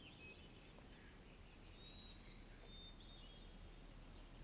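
Near silence outdoors, with a few faint, short, high bird chirps and whistled notes here and there.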